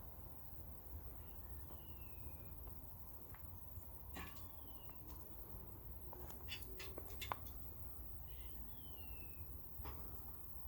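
A bird calling a short, falling whistled note three times over a low steady rumble of wind or outdoor background. A few sharp clicks come near the middle.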